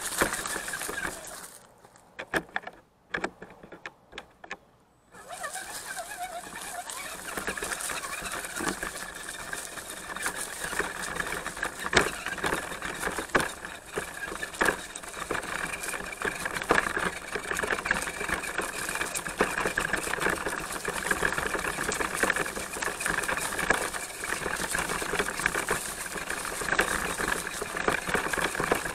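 Redcat Gen7 RC crawler's electric motor and drivetrain gears whining as it drives down a trail, with many small clicks from the tyres on stones. The sound drops almost away for about three seconds near the start, then runs steadily.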